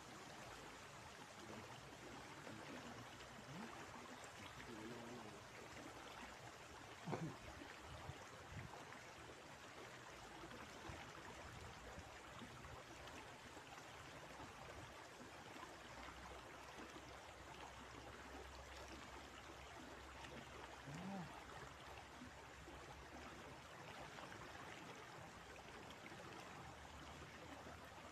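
Steady rush of flowing river water, with a brief sharp knock about seven seconds in.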